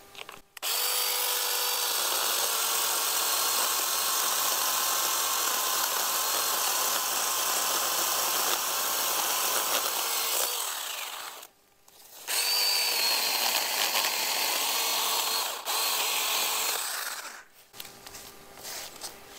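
Ryobi P5452 8-inch battery-powered mini chainsaw running and cutting through the trunk of a sapling about 3 inches thick. It starts about half a second in and runs with a steady whine for about ten seconds, stops briefly, then starts again for about five more seconds before cutting off.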